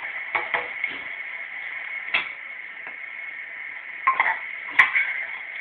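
A few short clicks and knocks over a steady high hiss, most of them in the first second and around four to five seconds in.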